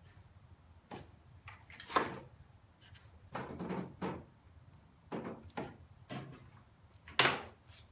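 Scattered light knocks and clunks of wood and metal being handled on a switched-off table saw: the clamped 4x4 workpieces and the rip fence being shifted for the next notch cut. There are about a dozen separate knocks, the loudest about two seconds in and near the end.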